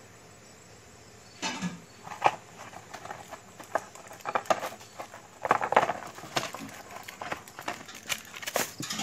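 Close rustling and crinkling of plastic wrapping and cardboard firecracker packaging being handled, in irregular bursts starting about one and a half seconds in.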